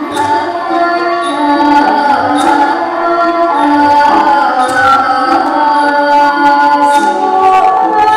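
Thai classical music for a lakhon phanthang dance-drama: a sung melodic line over a Thai classical ensemble, with light percussion strokes now and then.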